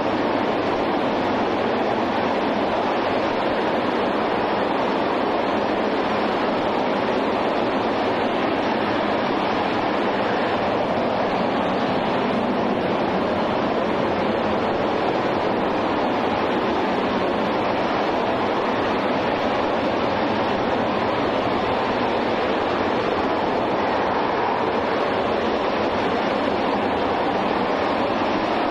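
RS-25 liquid-hydrogen/liquid-oxygen rocket engine firing steadily in a static test fire: a continuous, even rushing noise that holds level with no change.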